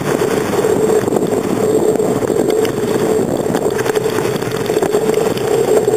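Steady rushing wind and rolling road noise of a bicycle ride, picked up by a handlebar-mounted camera, with a steady hum running through it.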